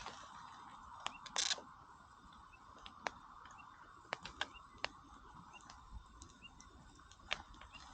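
Wood campfire crackling, with sharp pops scattered irregularly through, over the steady rush of river water.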